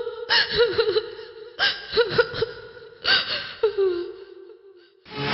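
A woman crying aloud, sobbing and wailing in three breaking bursts with a shaking voice.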